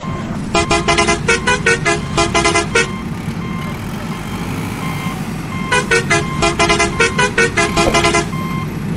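Toy container truck's electronic sound unit: a steady engine-like rumble with two runs of rapid horn toots, each about two seconds long, and short beeps between them.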